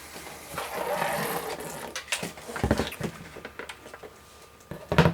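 PC case and fan parts being handled: a rustling scrape from about half a second to two seconds in, then a few sharp knocks, the loudest near the end.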